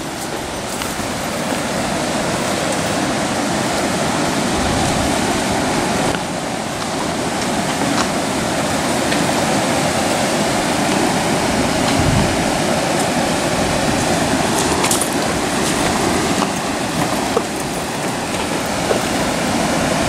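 River rapids rushing over rocks: a steady, loud wash of water noise, with a few light clicks now and then.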